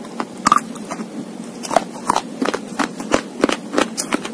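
Close-miked crunching of slate being chewed: sharp, irregular crunches, several a second.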